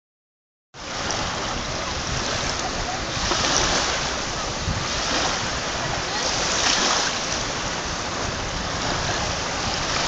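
Small sea waves washing in over a fine pebble beach in shallow water: a steady hiss that swells twice as waves come in.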